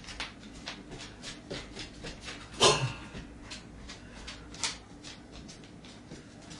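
A dog's claws tapping on a hard floor as it prances about excitedly, about three clicks a second, with one louder brief sound about two and a half seconds in.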